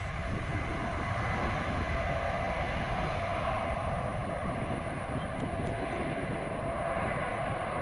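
Airbus A320 jet engines at takeoff thrust as the airliner climbs away: a steady rushing rumble with no break.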